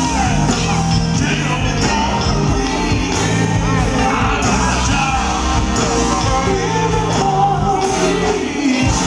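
Live soul vocal group singing lead and harmony over a full live band with keyboards, loud and continuous.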